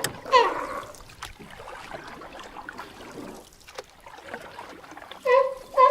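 Water sloshing and trickling around a kayak. Short repeated pitched calls come at the very start and start again near the end.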